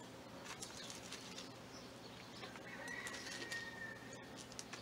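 Hands scooping and pressing loose potting mix of coir, sphagnum moss and LECA clay balls into a terracotta pot: faint rustling and scraping. About three seconds in, a faint thin high tone sounds for a little over a second.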